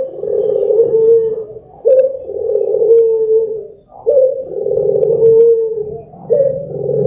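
Barbary dove (puter) cooing: low, long coos repeated about every two seconds, each opening with a short note and then drawn out on one pitch.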